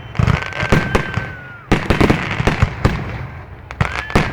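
Fireworks display going off: a rapid series of sharp bangs and crackling reports, with a thin high whistle held for about a second early on and another starting near the end.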